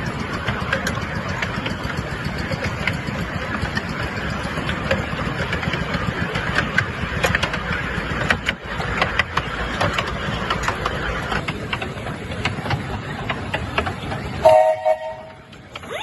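Miniature steam locomotive running on its track: a steady hiss of steam with many irregular clicks and knocks from the wheels and rails. A brief pitched toot sounds near the end.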